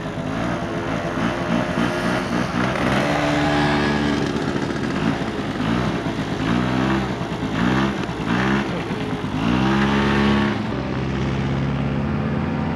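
Honda scooter's small engine running and revved in several quick throttle blips that rise and fall in pitch, then running steadily near the end.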